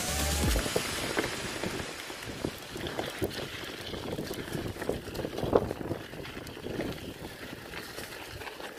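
Full-suspension all-mountain bike riding down a dirt trail: steady rushing tyre and wind noise with irregular rattles and knocks over bumps, the sharpest knock about halfway through. Background music fades out in the first half-second.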